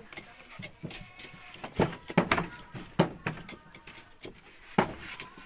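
A series of sharp knocks and taps at irregular intervals, about half a dozen of them, with the loudest coming roughly two, three and nearly five seconds in.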